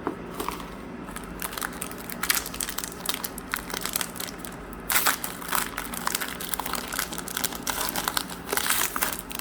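Plastic-foil trading-card pack wrapper being handled and crumpled, giving a run of irregular crinkles, with a louder burst about halfway through.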